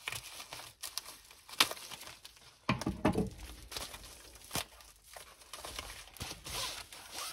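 Plastic packaging of a diamond painting kit crinkling and rustling as it is handled, in irregular sharp crackles and clicks.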